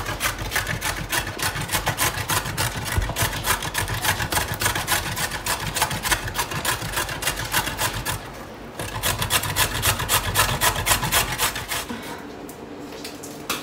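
A carrot being grated on a stainless-steel box grater, in quick, even strokes several times a second. The grating pauses briefly about 8 seconds in, resumes, and stops about 12 seconds in.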